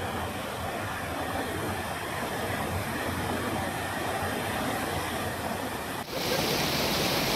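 River water rushing over rocks, a steady noise. About six seconds in it switches abruptly to louder, brighter white water pouring over a weir and through rapids.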